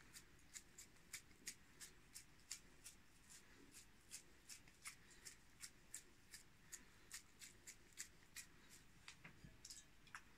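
Faint, rhythmic soft wet smacks, about three a second, as a hand squeezes and pats minced meat onto a flat metal skewer to shape lyulya kebab.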